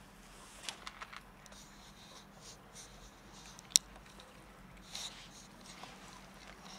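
Cat chewing dry kibble: scattered small crunches and clicks, with one sharp click a little under four seconds in.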